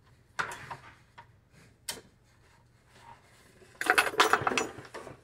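A Ruger American rifle's bolt clattering and scraping against the receiver as it is worked back in, without yet seating. There is a short metal clatter about half a second in and a sharp click near two seconds, then a louder run of rapid rattling clicks near the end.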